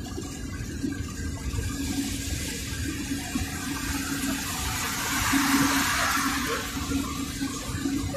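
Low road rumble and engine hum inside a moving car. A rushing noise builds about two seconds in, is loudest around the middle and fades near the end.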